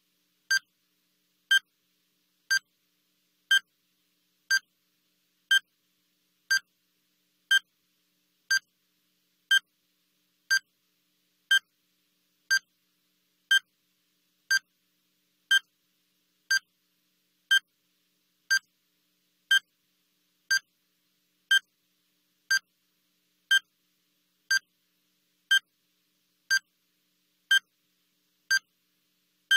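Countdown timer's short, high electronic beep, sounding once every second with silence in between, marking off each second.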